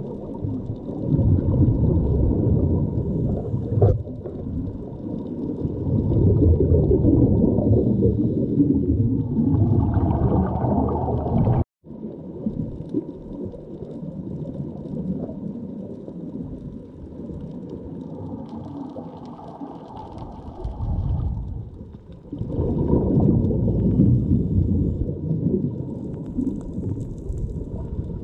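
Muffled rush and gurgle of water against a GoPro's waterproof housing while snorkeling, a dull rumble that swells and ebbs over several seconds at a time. The sound cuts out for an instant a little before the middle.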